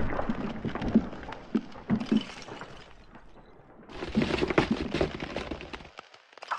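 Iceberg breaking apart: a rumble of crashing ice with many sharp cracks and thuds. It eases off in the middle, surges again about four seconds in, and drops away just before the end.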